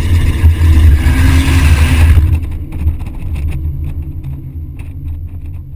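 BMW 130i's 3.0-litre straight-six engine running hard under load, with a loud rushing noise over it, heard from a camera mounted outside the car. About two seconds in, the engine and the rushing drop off sharply, leaving a lower, quieter engine note with scattered knocks.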